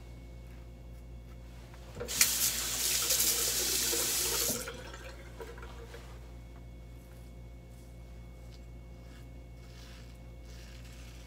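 A bathroom sink tap runs for about two and a half seconds, starting about two seconds in and shutting off abruptly.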